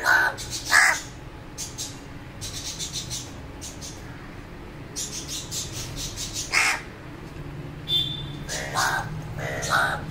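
House crow cawing: two calls at the start, one after about six and a half seconds, and three more near the end.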